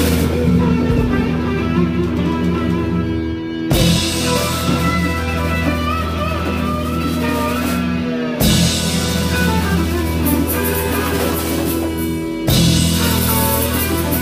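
A band's rhythm section, with drum kit, bass and electric guitar, playing a steady groove, with a strong accent about every four seconds.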